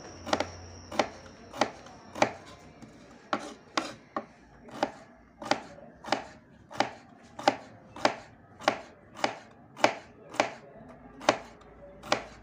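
Kitchen knife thinly slicing bitter melon on a wooden cutting board: a steady rhythm of sharp knocks, somewhat under two a second, each stroke going through the melon and striking the board.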